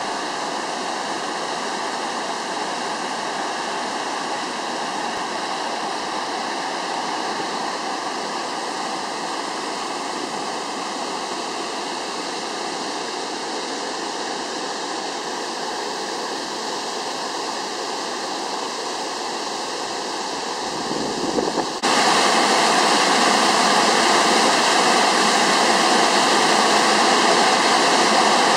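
Steady rush of water from Apikuni Falls and its snowmelt creek. About 22 seconds in it jumps louder and brighter, with the creek cascading over rocks close at hand under a snow bridge.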